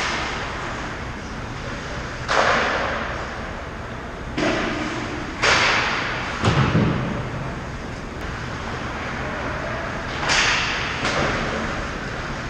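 Ice hockey skate blades scraping the ice in about six short strokes that each fade quickly, with a dull thud about six and a half seconds in.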